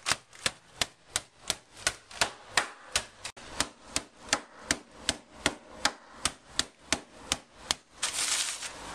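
Rolling pin repeatedly striking rich tea biscuits in a plastic freezer bag on a work surface, crushing them to crumbs: a steady run of sharp thuds, about three a second. About eight seconds in, a second-long rustle of noise sits among the blows.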